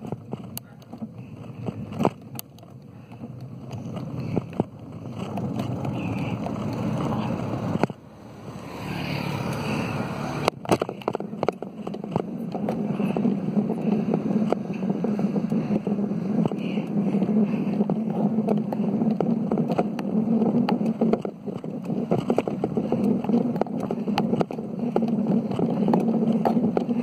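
Wind buffeting a handheld phone's microphone on a moving bicycle, with scattered knocks and rattles from the phone and bike. It grows louder and steadier about halfway through.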